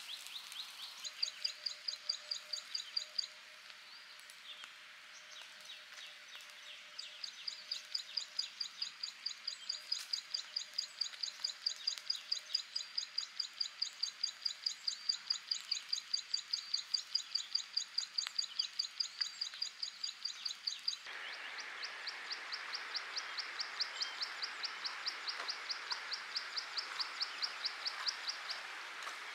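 Wildlife chirping: a high, rapid call repeated evenly several times a second, with a brief lull a few seconds in. About two-thirds of the way through, a steady hiss suddenly comes in underneath while the chirping carries on.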